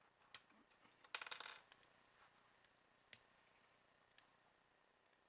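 Small clicks and a brief rattle as an action figure's armor pieces are handled and fitted: a click, a short clattering run about a second in, a sharp click about three seconds in and a faint one near the end.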